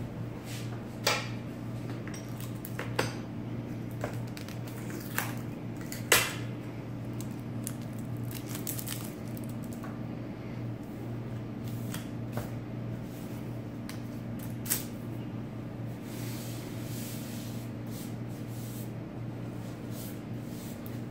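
Hands handling styrofoam packing and packaging on a wooden table: scattered light clicks and knocks, the loudest about six seconds in, over a steady low hum.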